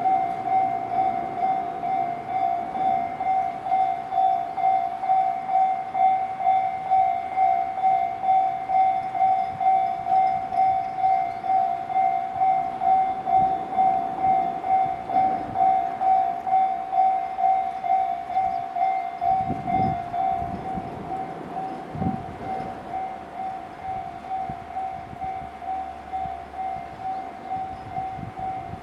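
Japanese railway level-crossing warning bell ringing: an even, high ding-ding repeating just under twice a second. A few low thuds come about two-thirds of the way through.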